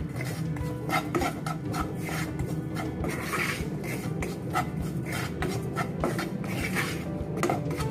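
Wooden spatula scraping and stirring a dry, crumbly besan-and-spice mix around a nonstick pan while it roasts, making a rapid, irregular series of rasping strokes.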